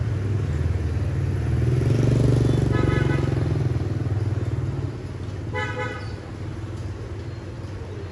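Motorbikes passing on a street, their engine sound swelling to its loudest about two seconds in and fading after five seconds. A vehicle horn gives two short beeps, about three seconds in and again near six seconds.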